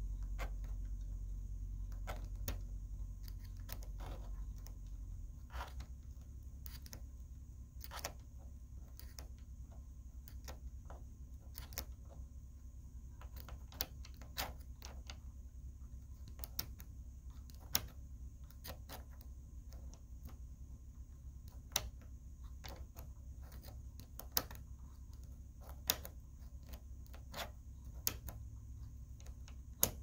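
Light, sharp mechanical clicks from an airsoft gearbox being worked, coming irregularly at roughly one a second over a low rumble that eases off about five seconds in.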